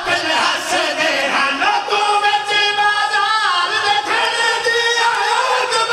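Unaccompanied voices chanting a mournful Punjabi lament for Imam Hussain. A young reciter's high voice holds long, wavering notes, with men singing along beside him on microphones.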